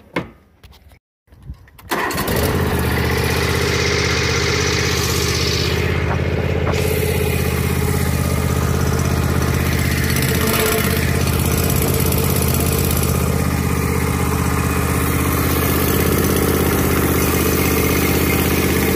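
John Deere riding mower engine starting about two seconds in, then running steadily. It breathes through a homemade exhaust of two open pipes, one pointing straight up and one crooked to the side.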